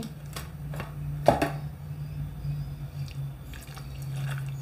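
Light kitchen handling sounds while spice is added to the kebab meat: a few soft clicks and one sharper knock about a second in, over a steady low hum.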